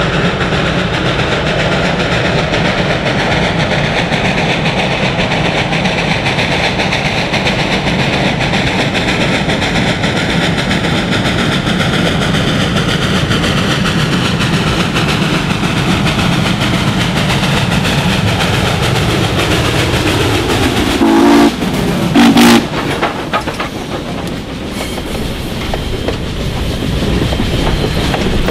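Steam locomotive working steadily as it approaches, its sound falling in pitch as it passes about 20 seconds in. Two short, loud steam whistle blasts follow just after, and then the passenger cars roll past with a clickety-clack of wheels over the rail joints.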